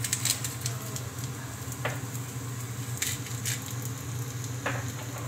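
Sliced onions sizzling in a small nonstick frying pan over a gas flame: a steady hiss with scattered small crackles and a couple of brief pops, over a steady low hum.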